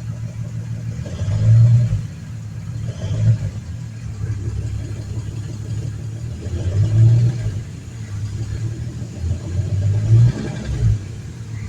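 Dodge Lancer's engine running in a steady low rumble, swelling louder about five times as it is briefly revved.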